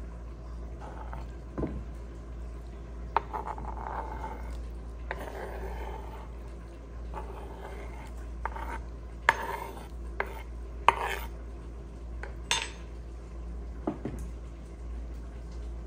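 Metal spoon scraping chopped vegetables across a bamboo cutting board and clinking against a ceramic dish: a scatter of short scrapes and clicks, the sharpest a little past the middle, over a steady low hum.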